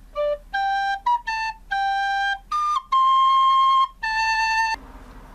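Descant recorder playing a short tune of about eight held notes, stepping up and down in pitch, which stops abruptly near the end.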